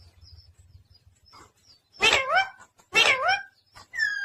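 Pet talking parrot calling: two similar calls, each about half a second long with a dip and rise in pitch, about a second apart, then a higher call sliding upward near the end.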